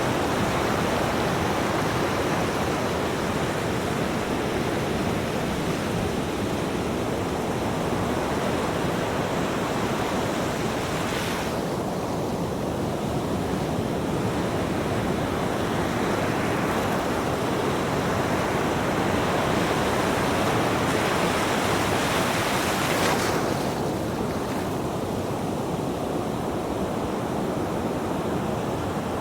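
Ocean waves breaking and washing in, a continuous surf noise; the high hiss of the wash eases off about a third of the way in and again near the end.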